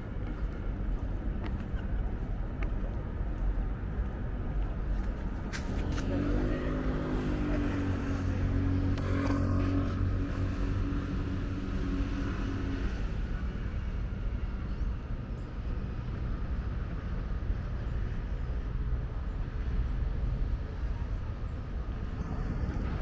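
City traffic with a steady low rumble. About six seconds in, a passing vehicle's engine note rises in pitch, holds, and fades out after several seconds.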